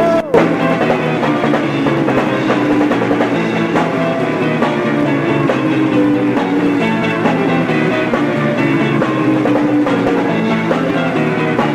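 Live rock band playing an instrumental passage, electric guitar over a drum kit. The sound cuts out for a split second just after the start.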